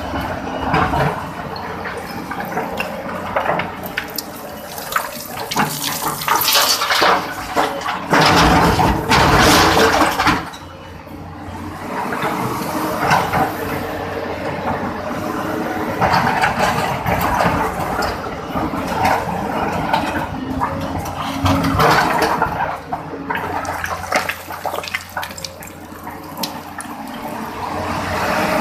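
Excavator running, its engine and hydraulics giving a continuous rushing noise that swells and fades. It is loudest about eight to ten seconds in.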